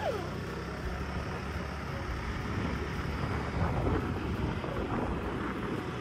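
Wind rumbling on the microphone outdoors: a steady low rumble with no clear events in it.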